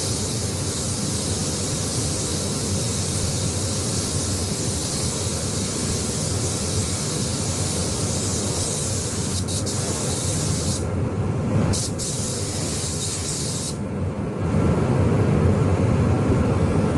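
Air spray gun hissing steadily as paint is sprayed onto car panels. The hiss cuts out briefly twice in the middle as the trigger is released, then stops about three-quarters of the way through, while a steady low running noise underneath grows louder near the end.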